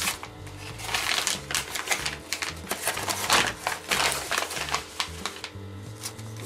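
Paper and a padded mailer envelope rustling and crinkling in quick, uneven strokes as hands dig into the envelope and shuffle the papers, busiest in the middle. Background music with a bass line runs underneath.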